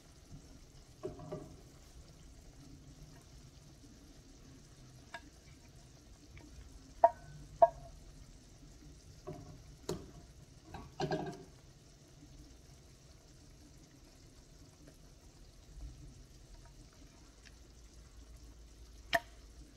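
Utensils clinking against a pan as pork chops are moved into it: a few sharp clinks, the loudest a pair about half a second apart some seven seconds in, over a faint, steady frying sizzle.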